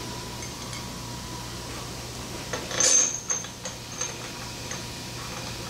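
Steel parts of a Kurt machine vise clinking as the stationary jaw is refitted and its bolts handled from underneath: a cluster of metal clinks about halfway through, the loudest with a brief bright ring, then a few lighter taps.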